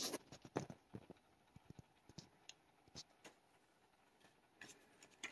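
Near silence with a few faint, irregular clicks and taps from handling a small die-cast toy car, with a sharper click right at the start.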